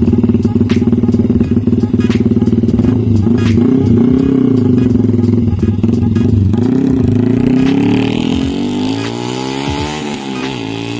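Yamaha R15 V3's single-cylinder engine through a Kawahara Racing aftermarket exhaust, idling steadily and then revved in several short throttle blips that rise and fall in pitch.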